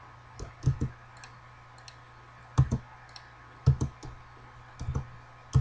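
Irregular clicks of a computer mouse and keyboard, about a dozen in all, some in quick pairs, over a faint steady hum.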